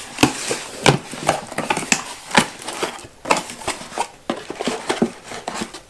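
Boxes and packaging being handled during an unboxing: irregular light knocks, taps and rustles.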